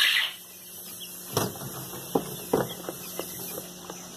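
A few sharp knocks and taps of a plastic tub being handled while newly hatched quail chicks are moved into it, the loudest around a second and a half and two and a half seconds in. Faint chick peeps and a steady low hum lie beneath.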